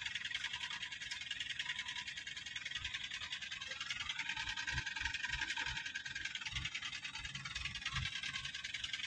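Steady high-pitched buzzing of insects, a dense fast trill with no break. In the middle a few low, irregular buffets of wind on the microphone come in.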